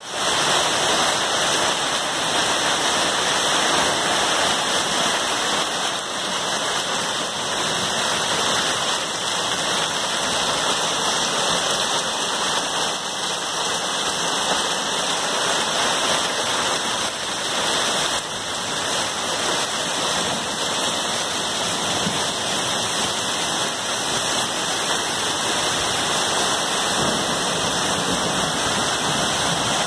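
Dime-size hail falling with rain, pelting a wooden deck and leafy shrubs: a steady, dense hiss of countless small impacts.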